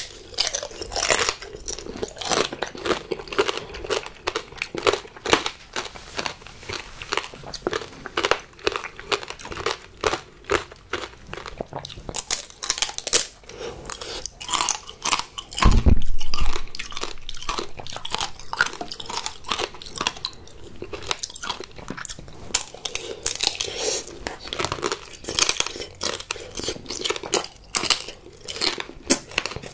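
Close-miked biting and chewing of strawberry tanghulu: the hard candied sugar shell cracks in quick, sharp crunches, followed by wet chewing of the fruit. A loud, dull thump sounds about halfway through.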